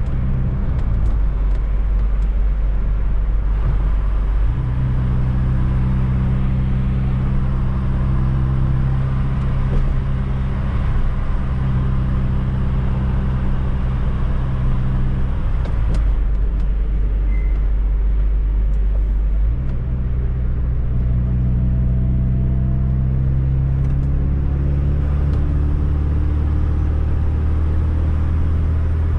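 Fiat Coupe 16V Turbo's turbocharged engine running at steady revs while driving, with road noise. The engine note changes about four seconds in and again near twenty seconds.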